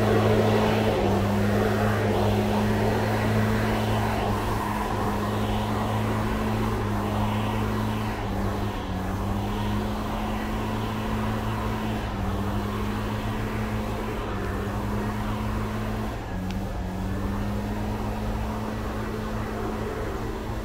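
An engine running steadily, a low drone with small shifts in pitch that slowly grows fainter.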